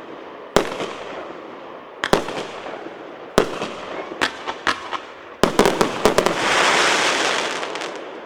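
A 138-shot, 1.2-inch fireworks cake firing. Its shells burst in sharp bangs, each with an echoing tail: first singly or in pairs about a second apart, then a quick volley of about seven near the middle. A dense hissing crackle then swells and fades over the last two seconds.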